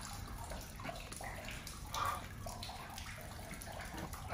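Faint trickling and dripping water inside a damp, leaking building, with a brief knock about two seconds in.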